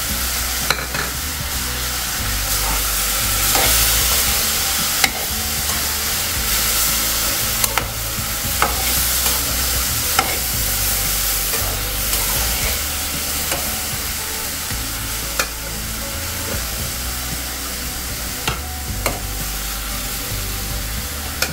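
Chopped mixed vegetables sizzling steadily in hot oil in a coated kadai as they sauté, stirred with a metal spatula that clinks sharply against the pan every second or so.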